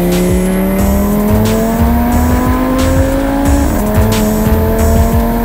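Car engine accelerating under load, its pitch climbing steadily, dropping suddenly a little over three and a half seconds in as it shifts up a gear, then climbing again; heard inside the cabin.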